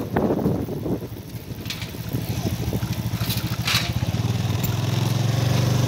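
Low, steady engine hum, growing louder about four seconds in.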